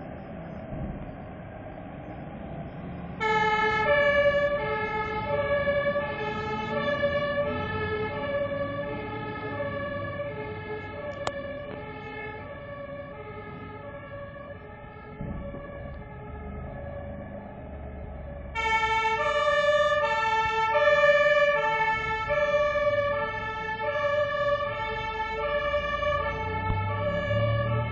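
German two-tone fire-engine sirens (Martinshorn) as fire engines pull out of the station, each alternating between two notes at an even pace over truck engine rumble. The first siren starts about three seconds in, and a second, louder one joins about two-thirds of the way through.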